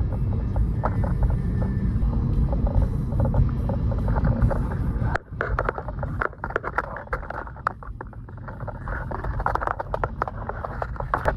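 Low, steady road and engine rumble inside a moving car's cabin, with background music over it. The sound drops abruptly about five seconds in, then carries on quieter.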